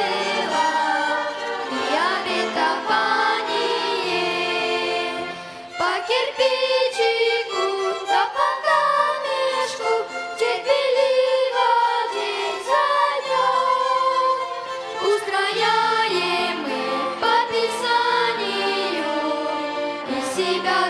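Christian church song sung with a violin ensemble accompanying, the bowed strings holding long notes under the voices. The music drops briefly about six seconds in.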